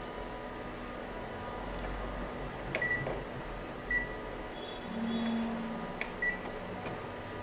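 Sharp BP-20M22 copier's control-panel keys beeping as they are pressed in service mode: three short high beeps, the first about three seconds in. Under them is a faint steady machine hum, and a brief low hum with a higher tone about five seconds in.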